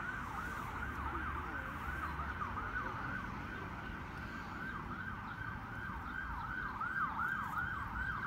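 Emergency vehicle siren in a fast yelp, its pitch sweeping quickly up and down about two to three times a second.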